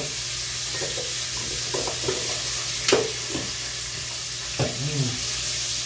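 Sharp clink of tableware being set down about three seconds in, and a lighter knock a little before the five-second mark, over a steady hiss.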